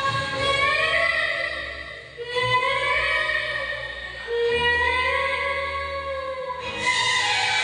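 Woman singing a melody into a handheld microphone, holding long notes that glide up and down, with short breaks between phrases about two seconds in and near the end.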